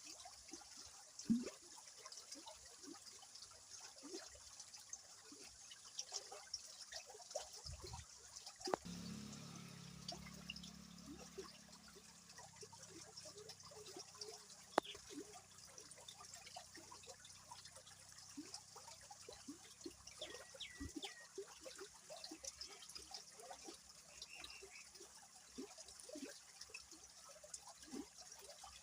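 Flowing river water trickling and splashing faintly, with a steady hiss and many small, irregular splashes and drips. A low hum comes in about nine seconds in and slowly fades.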